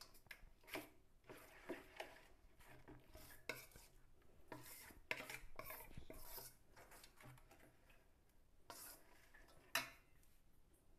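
Metal spoon stirring and scraping thick pakora batter in a bowl: faint, irregular clinks and scrapes of spoon on bowl.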